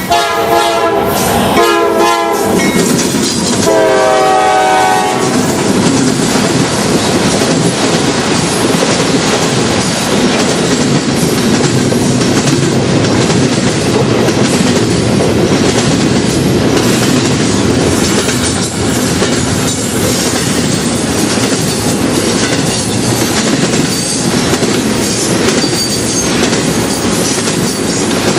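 Norfolk Southern locomotive horn blowing three chord blasts in the first five seconds, the last one the longest. The train then rolls past steadily, wheels clattering over the rail joints.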